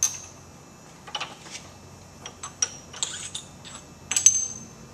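Metal rifle parts and tools clinking and knocking as they are handled at a bench vise: a string of sharp clicks and clanks, the loudest near the end with a brief metallic ring.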